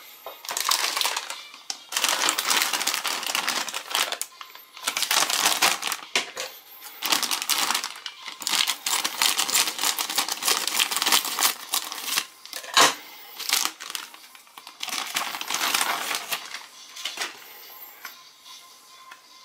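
Thin clear plastic toy wrapper crinkling and rustling in irregular bursts as it is handled and opened, with one sharp snap about two-thirds of the way through.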